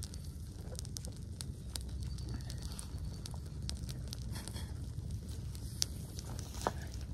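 Small fire of dry grass and tinder crackling, with sharp pops scattered throughout over a steady low rumble.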